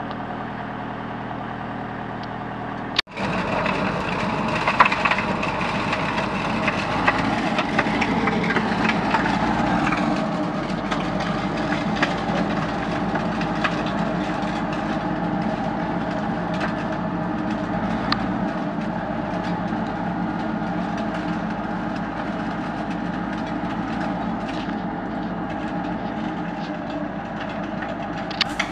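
A tractor's engine runs at steady speed. About three seconds in, after a brief break, the sound becomes louder and fuller as the tractor works with its snow blower: the engine runs under a rushing of thrown snow, with many sharp crackling and crunching clicks of snow and ice.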